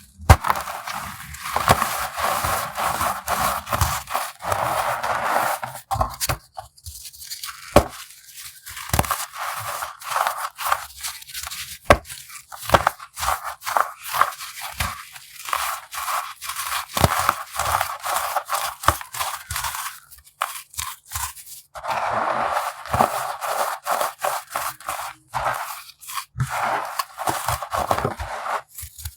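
Compacted baking soda being crushed: dense crunching and crackling in long runs, broken by short pauses and single crisp snaps.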